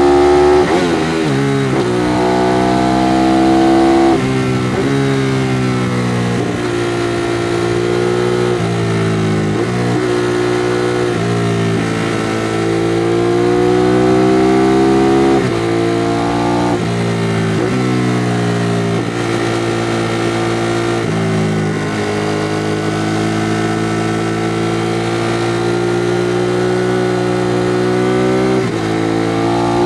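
Ducati Monster 821's L-twin engine through its stock exhaust, ridden hard: the engine note climbs steadily under throttle and drops sharply at each gear change, several times over.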